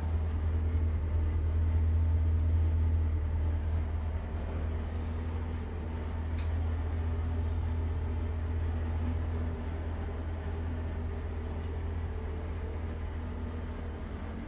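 Steady low drone of the 2007 GMC C4500 truck's engine idling, heard from inside its cable splicing box body.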